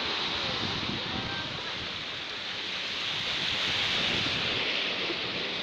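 Sea waves washing and breaking against shoreline rocks, a steady rushing wash with wind on the microphone.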